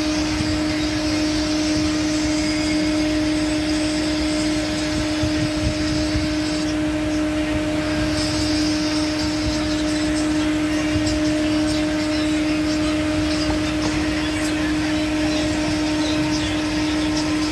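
Water pouring from a white pot into ceramic bowls of noodles, a splashing hiss that pauses briefly about seven seconds in, over a constant mechanical hum.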